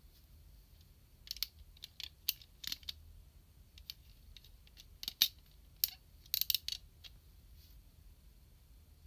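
Plastic parts of a snap-together SMP Gaoking robot figure clicking and knocking as it is handled and posed: about a dozen sharp clicks in clusters, the loudest about five seconds in, stopping about two seconds before the end.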